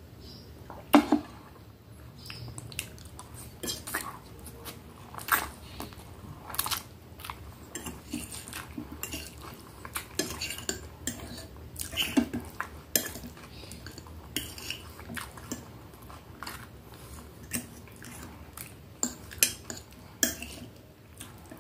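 Cutlery clinking and scraping against a dish in irregular sharp clicks, a few of them loud, with chewing close to the microphone.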